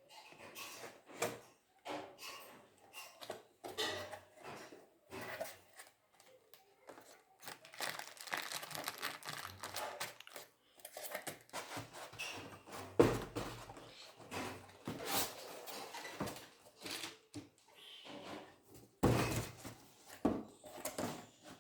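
Cardboard packing box of an instant water heater being handled and opened: irregular scraping, rustling and knocks, with a sharp thump about thirteen seconds in and a louder stretch of rubbing near the end.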